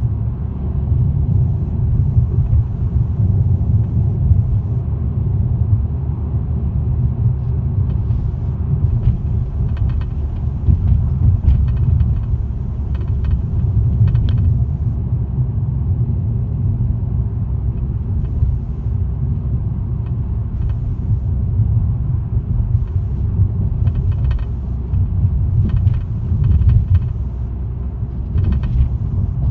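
2018 Toyota Corolla with a steady low rumble and, at times, clusters of short rattling clicks: the rattle the car is making.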